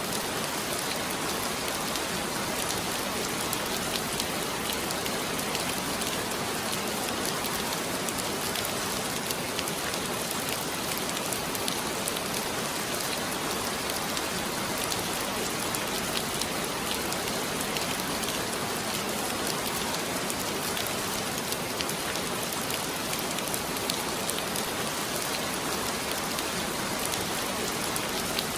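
Heavy rain falling steadily, a dense even hiss of many drops hitting surfaces, with no let-up.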